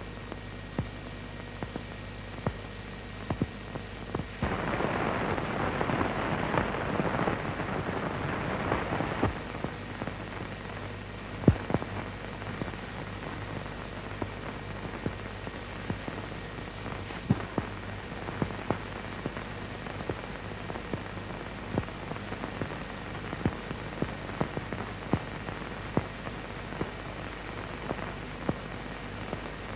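Worn film soundtrack surface noise: a steady low hum with scattered sharp clicks and pops. About four seconds in, a louder rush of noise lasts about five seconds.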